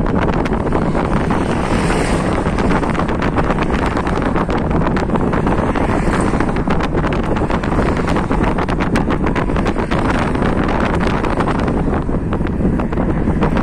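Wind blowing over a handheld phone microphone: a loud, steady rumble with constant crackling.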